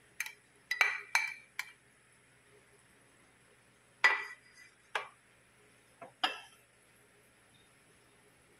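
A plastic spoon and bowl knocking and clinking against a glass baking dish as shredded young coconut is scraped in and spread out. There are four quick knocks in the first two seconds, then four more spread over the next few seconds.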